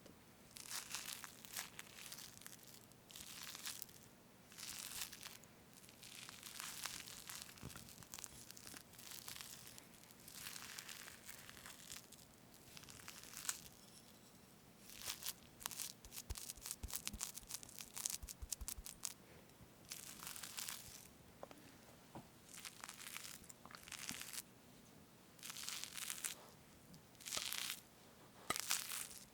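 Close-miked whipped cream on a strawberry cake being cut and scooped: soft, wet strokes that come every second or two, with a quick run of small clicks about halfway through.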